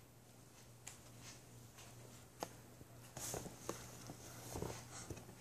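A baby gnawing and sucking on a whole peach: a few faint clicks, then from about three seconds in faint, irregular mouthing and munching noises.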